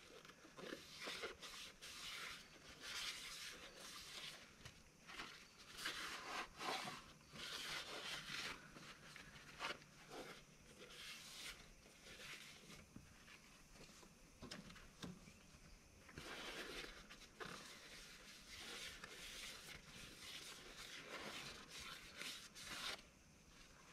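Faint, irregular rubbing and scrubbing strokes of a shop towel wiping penetrant dye out of a Toyota 1HD-T diesel's cylinder bore, the cleaning step before the crack-test developer is sprayed.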